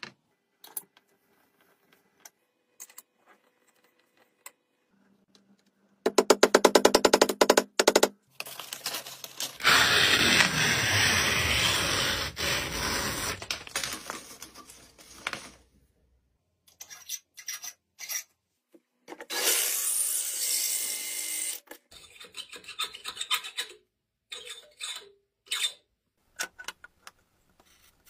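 A run of hand-tool workshop sounds: scattered clicks of metal tools on a wooden board, a loud fast ratcheting rattle for about two seconds, then long loud stretches of sandpaper rubbing and scraping, with shorter scrapes near the end.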